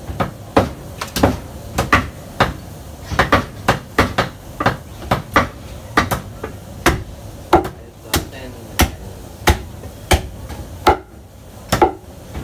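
Heavy meat cleaver chopping through goat carcass, meat and bone, onto a thick round wooden chopping block: a run of sharp, solid chops, about one to two a second, some in quick pairs.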